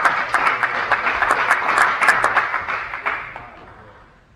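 Audience applauding a won point, many hands clapping at once, dying away about three seconds in.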